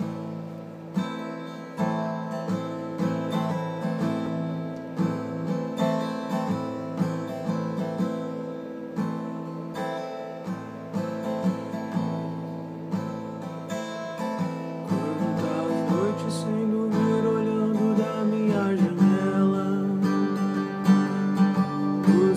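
Acoustic guitar playing a slow song intro, chords strummed about once a second, growing louder over the last few seconds.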